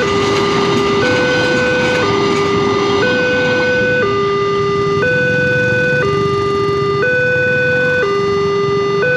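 Railway level crossing warning alarm sounding a two-tone signal that alternates between a lower and a higher note, each held about a second, steady and loud.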